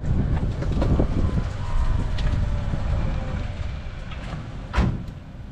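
Low rumble of wind buffeting the microphone, with scattered knocks and one sharp thump near the end.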